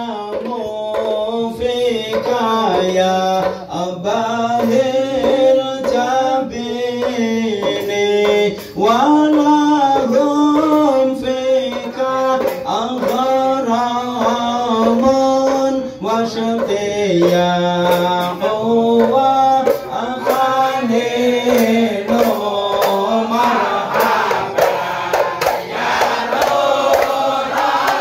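Men's group singing sholawat in unison to the beat of hadrah ISHARI frame drums (terbang), in the standing mahallul qiyam section.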